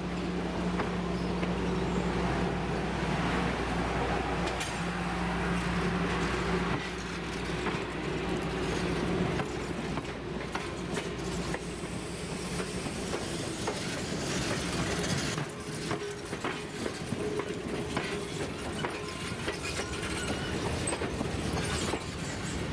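A train running on the rails, with a steady low drone that fades about seven seconds in, then wheels clicking over the rail joints.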